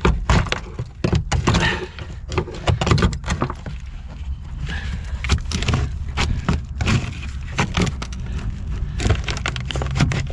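Clatter, knocks and scraping of hard objects and loose debris being handled and moved about in a car trunk's spare-tyre and jack well, many sharp knocks in quick irregular succession.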